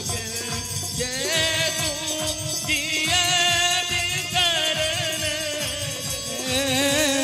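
A man sings a folk song with strong vibrato into a microphone, backed by harmonium and a dholak drum keeping a steady beat, with some jingling hand percussion.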